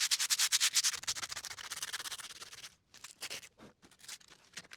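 Sandpaper rubbed by hand over a rusty steel acrow prop, about ten quick back-and-forth scratching strokes a second. It stops briefly just under three seconds in, and a few slower, scattered strokes follow. This rubs off the loose rust and paint left after wire brushing, to prepare the steel for rust paint.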